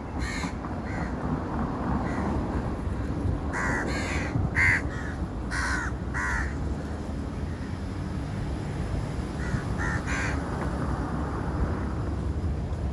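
Birds giving short harsh calls: a few near the start, a run of about half a dozen between four and six seconds in, and a few more near ten seconds, over a steady low rumble.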